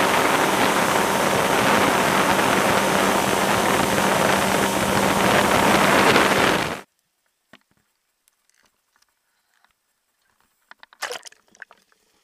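Motorboat running underway, a steady engine hum over water rushing along the aluminium hull. The sound cuts off abruptly about seven seconds in, leaving near silence with a brief cluster of clicks near the end.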